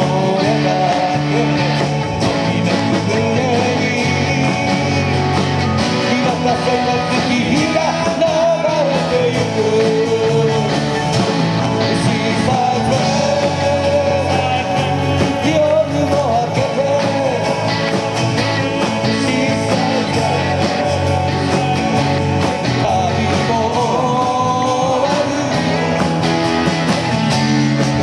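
Live rock band playing with acoustic and electric guitars, with a group of voices singing together over the music.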